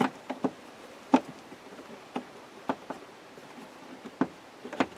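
Irregular light clicks and taps, about eight in all, the sharpest a little over a second in, as the weather finisher strip and handle parts are worked into the slot of a Land Rover Defender door.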